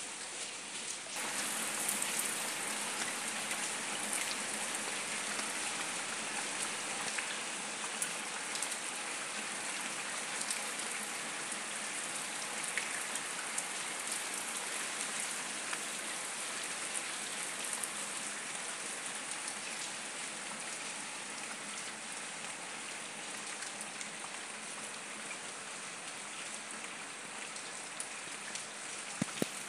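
Rain falling on brick paving and the leaves of a shrub, a steady, dense hiss of drops that grows louder about a second in. Two brief knocks near the end.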